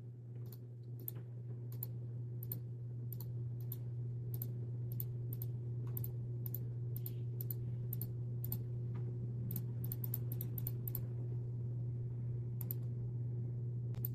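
Computer mouse button clicked over and over, two or three sharp clicks a second, thinning out about eleven seconds in, over a steady low hum.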